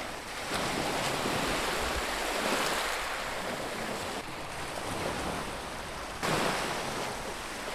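Small waves breaking and washing up a black volcanic-sand beach: a steady rush of surf that swells and ebbs.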